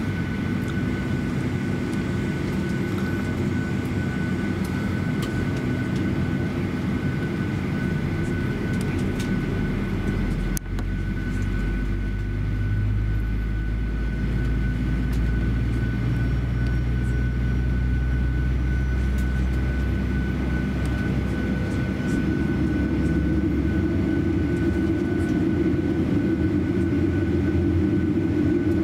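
Cabin noise inside a Boeing 737-800 during pushback: a steady hum with a high whine running through it. About ten seconds in there is a brief dropout, after which a deeper low rumble comes in and the sound slowly grows louder.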